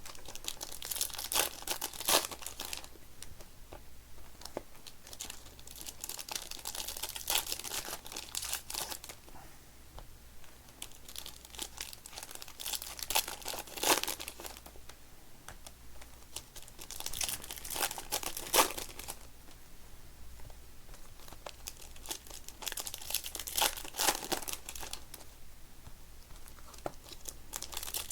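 Plastic wrapping on trading-card packs crinkling and tearing as it is handled and opened, in several bursts a few seconds apart.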